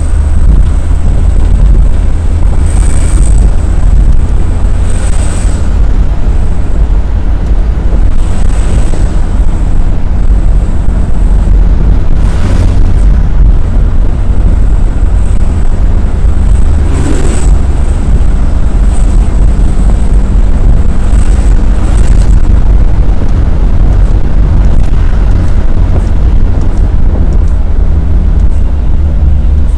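Steady, loud rumble of wind and road noise from a minibus driving fast, picked up by a camera mounted outside its windscreen.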